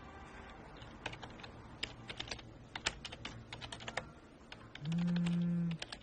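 Typing on a computer keyboard: irregular key clicks. Near the end a loud steady low tone sounds for about a second and cuts off.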